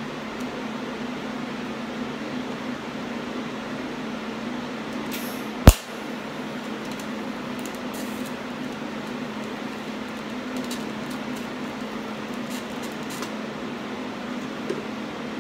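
Arc welder striking several short tack welds on thin sheet steel, each a brief faint burst over a steady shop hum. One sharp, loud click about six seconds in.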